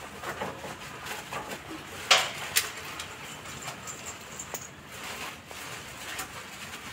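Soft, scattered clicks and taps, with two sharper clicks about two seconds in, from a wet dog on a metal chain moving about on a tiled floor during its bath.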